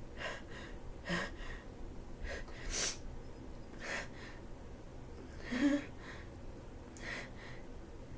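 A woman with a head cold gasping and sneezing: about five short, sharp breathy bursts as a sneeze builds. The loudest comes about five and a half seconds in and has her voice in it.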